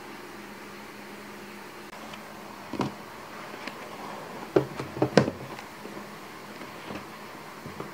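Notebooks being pulled out from a row of books on a shelf: one knock, then a quick cluster of knocks and light thuds about halfway through as the covers knock against each other and the shelf. A steady faint room hum runs underneath.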